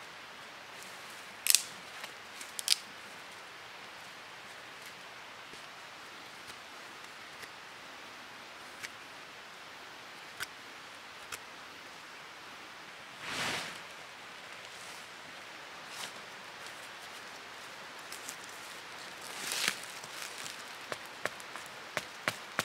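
Knife whittling a point on a green stick for a tarp stake: a few sharp cuts and small scraping ticks over a steady faint hiss. In the last two seconds a quick run of sharp knocks begins as the stake is driven into the ground with the back of an axe.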